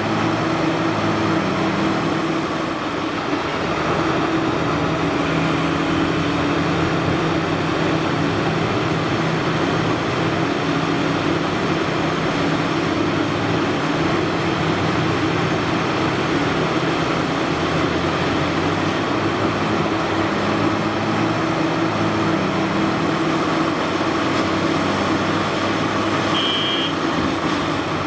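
Caterpillar 6015B hydraulic mining excavator's diesel engine and hydraulics running steadily under load as it digs and loads dirt into a haul truck. A short high beep sounds near the end.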